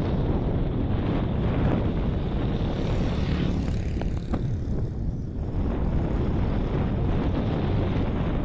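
Distant freight train's locomotive running with a steady low drone, mixed with heavy wind noise on the microphone.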